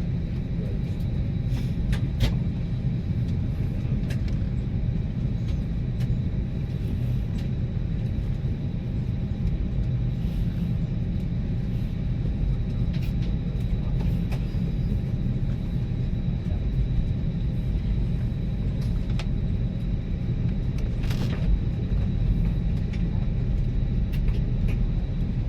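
Steady low rumble of an Airbus A320neo's cabin before departure, heard from inside the cabin, with scattered light clicks and knocks.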